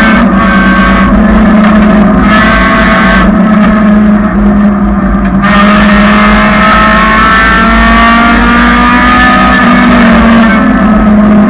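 1999 Honda Civic's four-cylinder engine running hard on track, its pitch climbing again and again under acceleration. The higher part of the sound drops away for about a second and a half, starting a little over a third of the way in, as if the throttle is lifted.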